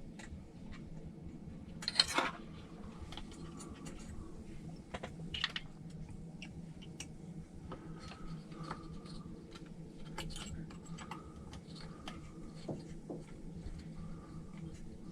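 Small clicks and taps of RC car parts and a hand tool being handled while a fan mount is fitted to a speed controller, with a louder clatter about two seconds in and another about five seconds in. A low steady hum runs underneath.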